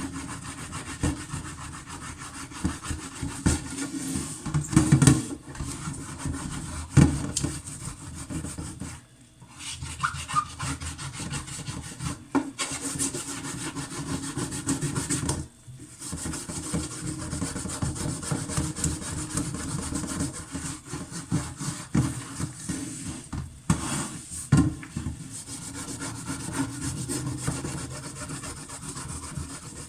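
Cooking pots being scrubbed by hand, a continuous rasping scrub with occasional knocks of the pot, pausing briefly about 9 and 15 seconds in.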